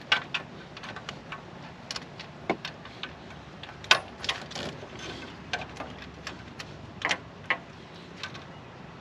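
Irregular metallic clicks and taps of hand tools and a spark plug being handled, the loudest about four seconds in.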